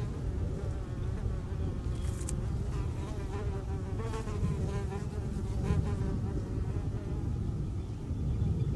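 A flying insect buzzing close to the microphone, its wavering hum rising and fading around the middle, over a steady low rumble. A sharp click comes about two seconds in.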